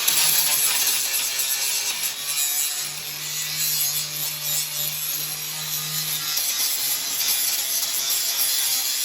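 Abrasive scraping and rubbing on steel as a fresh weld on a baler part is cleaned up, a continuous uneven scratching with a low hum in the middle few seconds.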